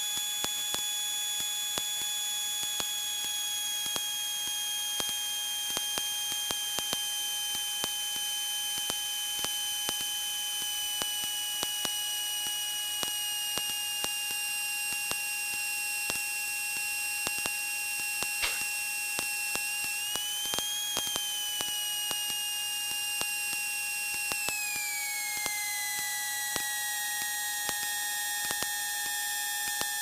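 High-pitched whine inside a single-engine light aircraft's cockpit during the landing. Its pitch slides slowly lower, rises and falls back briefly about 20 seconds in, then drops sharply about 24 seconds in, over a fixed steady tone and faint irregular ticking.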